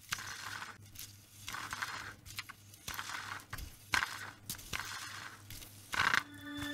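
A series of short crunches, about a dozen, coming unevenly every half second to a second, over a faint low hum.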